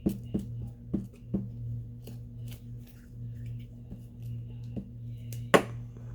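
Paper pieces being handled and set down on a desk: a string of light clicks and rustles, with one sharper click a little over five seconds in, over a steady low hum.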